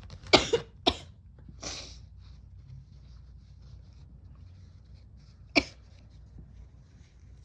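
A person with a cold sneezing and coughing. Two sharp bursts come close together, then a hissing breath, then one more sharp burst about four seconds later.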